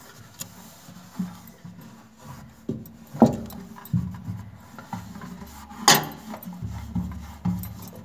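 Dry cloth rubbing and wiping against the inside walls of a microwave oven cavity. A few knocks of the hand against the walls come in between, the sharpest about three seconds in and another near six seconds.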